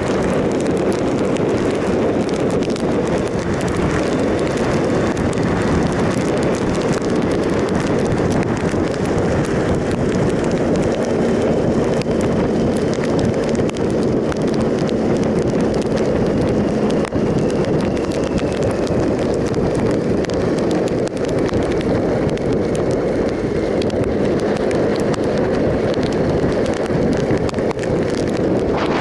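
A 2007 Triumph Sprint ST 1050 motorcycle being ridden steadily, its three-cylinder engine humming low under a heavy, steady rush of wind over the microphone.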